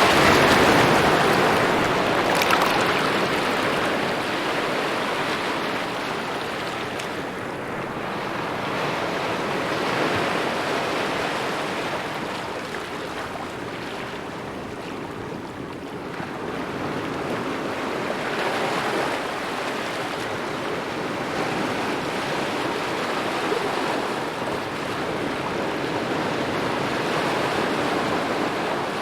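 Small waves lapping at a shore, swelling and washing back every few seconds, with a brief sharper splash about two and a half seconds in.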